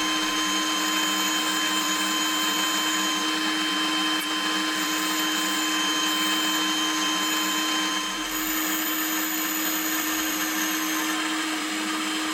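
Manual milling machine running steadily, its spindle motor giving a constant whine over the noise of the cut, with faint intermittent high squeals.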